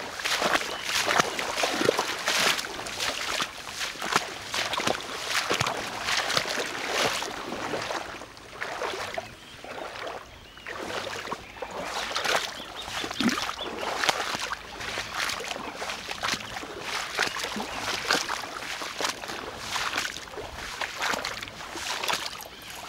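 Dense, irregular rustling and swishing of tall grass and brush as someone walks and pushes through it.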